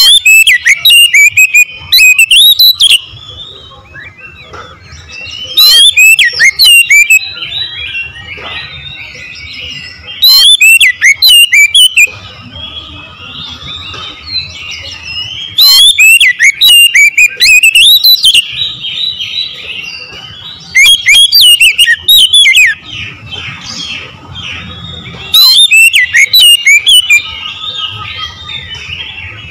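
Oriental magpie-robin singing in six loud bursts of rapid, varied whistled and trilled phrases, each one and a half to three seconds long. Softer chirping of other birds fills the gaps between the bursts.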